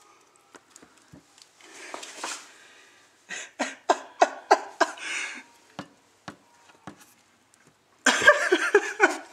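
Handling noise: a brief rustle, then a quick run of about seven sharp clicks or taps, about three a second, and louder rustling near the end.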